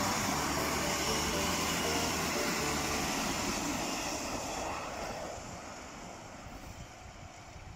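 Kintetsu electric train passing close by on the Yamada Line. Its running noise is loud at first, then fades steadily over the last few seconds as the train pulls away.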